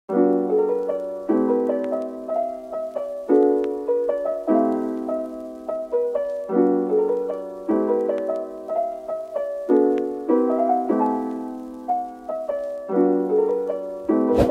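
Background piano music: notes and chords struck and left to fade, a new chord about every one to two seconds.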